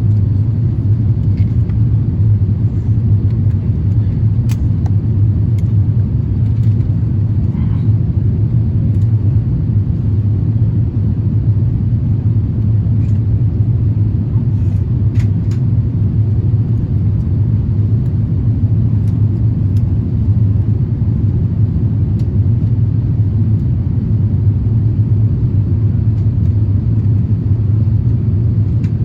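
Steady low rumble of an Airbus A350-1000 heard inside the passenger cabin, unchanging throughout, with a few faint clicks.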